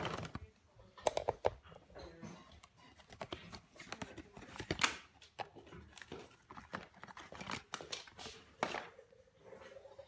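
Packaging rustling and crinkling as Shimano Dura-Ace hubs are unpacked and handled, with irregular clicks and knocks.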